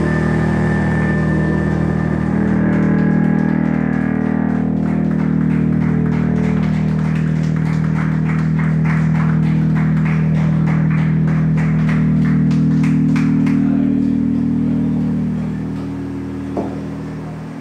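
Live band music from keyboards, bass guitar and drums: a loud sustained low drone, joined about four and a half seconds in by a fast steady ticking beat. Both thin out and fade near the end.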